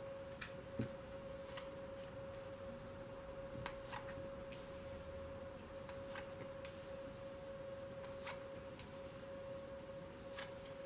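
Tarot cards being dealt onto a velvet-covered table: faint, scattered light taps and slides as each card is laid down. A steady faint high tone hums underneath throughout.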